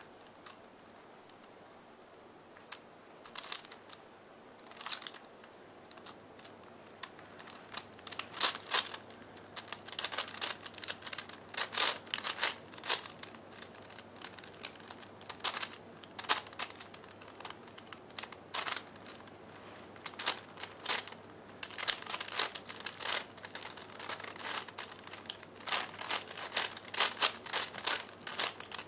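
V-Cube 5x5x5 puzzle cube being turned by hand: its plastic layers clicking as they rotate. There are only a few isolated clicks at first, then from several seconds in come frequent quick flurries of turns.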